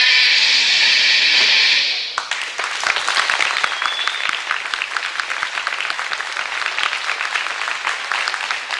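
A steady hiss, then about two seconds in, applause from an audience that goes on, a dense patter of many hands clapping.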